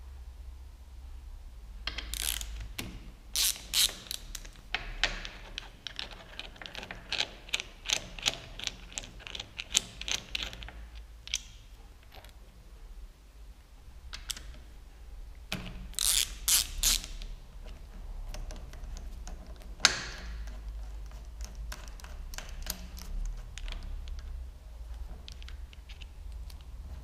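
Hand ratchet clicking in runs as the hex bolt of a motorcycle handlebar's bar-end weight is turned out, with a single sharp knock about twenty seconds in.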